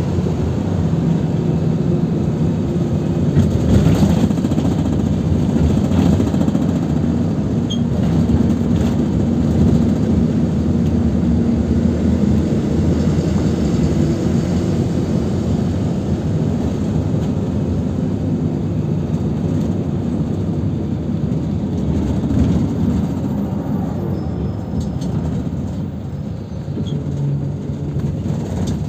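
Cabin sound of a PAZ 320405-04 city bus driving: the engine running with a steady low hum under tyre and road noise, with a few short knocks in the first several seconds.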